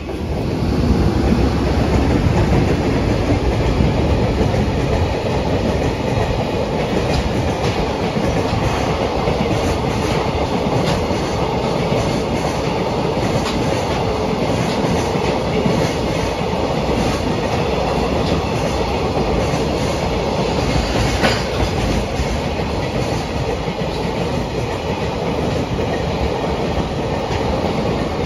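Train running on the rails: a steady, loud rumble with the clickety-clack of wheels over rail joints, and one sharper click about 21 seconds in.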